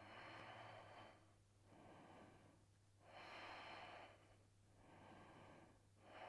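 Faint, slow, controlled breathing of a person holding a yoga stretch: about five breaths, each roughly a second long, the stronger ones alternating with softer ones, over a low steady hum.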